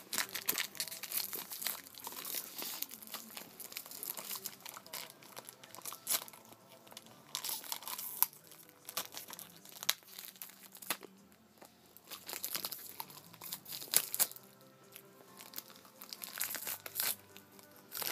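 Thin plastic wrapper of a gum packet crinkling and tearing in irregular bursts as a dog bites, chews and paws at it to get it open.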